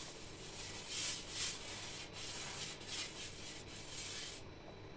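Wet sponge scrubbing a fireplace's glass door with plain water, repeated back-and-forth swishes that stop about four and a half seconds in.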